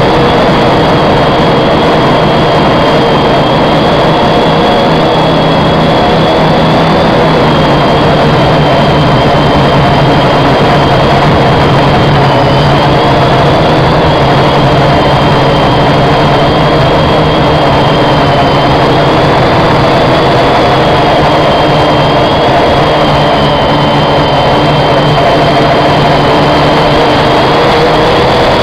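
Quadcopter's electric motors and propellers hovering, heard close up from its onboard camera: a loud, steady whine whose pitch wavers gently up and down as the motors hold position.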